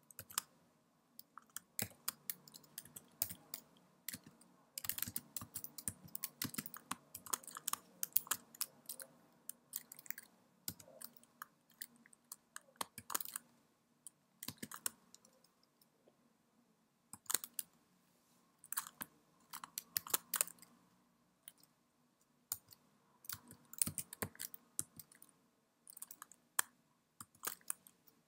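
Typing on a computer keyboard, entering a command key by key: slow, uneven keystrokes in short bursts with pauses of a second or two between them.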